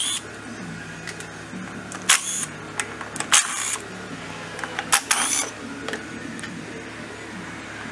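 Makita cordless driver spinning out the transmission-cover bolts of a KYMCO Easy 100 scooter in three short bursts, about two, three and a half and five seconds in.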